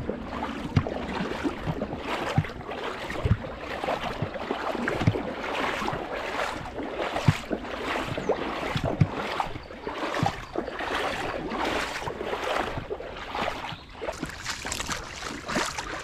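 Moving creek water splashing and gurgling close to the microphone, as a constant, uneven rush with frequent small splashes.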